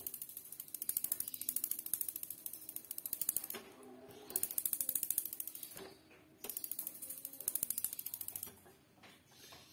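Battery-powered spark igniter of a Modena built-in gas hob ticking rapidly as the burner valve is worked, in three runs of a few seconds each: the second starts about four seconds in, the third about six and a half. The ignition is being tested on a hob whose right-hand burner has stopped working.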